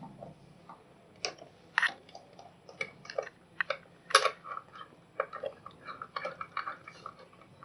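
Irregular small clicks, taps and scrapes of wires and a screwdriver being worked into a circuit breaker's terminals, with a sharper click about four seconds in.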